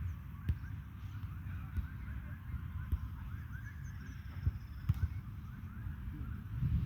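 A flock of birds calling: many short, hooked calls overlapping in a rapid, continuous chatter, over a low rumble with a few knocks.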